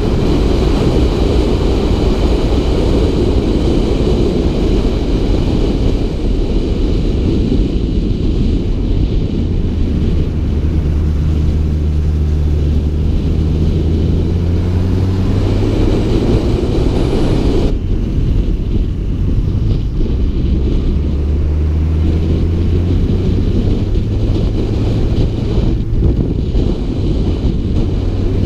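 Honda CB600F Hornet's inline-four engine running under way, its pitch rising and falling with the throttle, with a sudden break about two-thirds through. Wind rushes over the helmet-mounted microphone.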